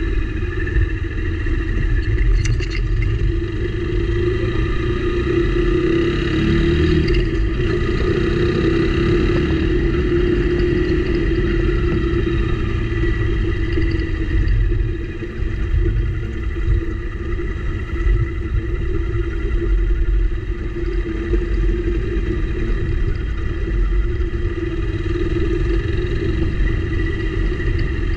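Motorcycle engine running steadily under a low rumble of wind and road noise, with a brief rise in pitch about six seconds in.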